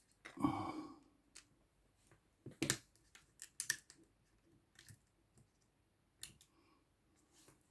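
Faint clicks and light taps of small tools and parts being handled on an opened iPhone, with a short scraping rustle about half a second in.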